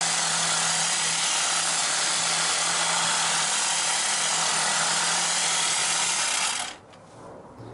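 Electric hedge trimmer running steadily while cutting back a leafy hedge, then switched off, cutting out sharply about six and a half seconds in.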